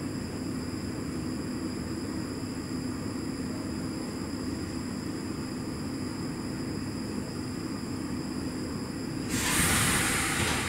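Steady hum and rumble inside an older Stockholm metro C6 railcar, with a low steady tone and faint high whines. About nine seconds in a loud hiss starts and runs on.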